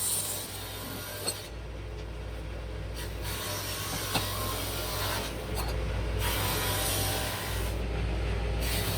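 A tool rubbing and rasping on wood in uneven strokes, over a steady low hum, with two sharp clicks.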